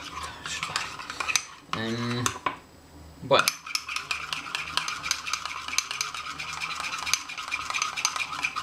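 Metal utensil rapidly stirring a thick oat batter in a glass mug, with fast clinks against the glass. A short hum-like sound comes about two seconds in, and a sharp falling squeak follows a second later.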